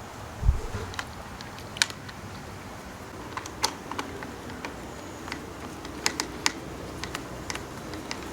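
Scattered small clicks and taps of screws and lock parts being handled while the electronic deadbolt's interior assembly is fitted to the door, with a dull thump about half a second in.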